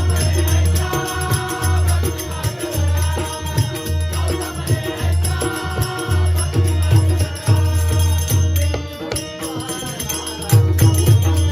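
Marathi devotional bhajan music: a deep hand drum beating in a steady rhythm, jingling metal percussion and steady sustained drone tones.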